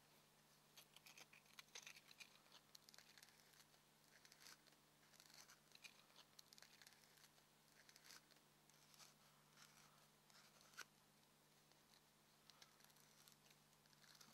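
Faint, irregular scratching and rustling of emery cloth rubbed by hand inside the end of a molded heat-shrink boot, abrading its inner surface in short strokes.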